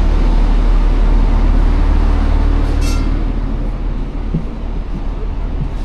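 Diesel train engine running steadily with a deep, even drone. A short high-pitched sound cuts in about three seconds in.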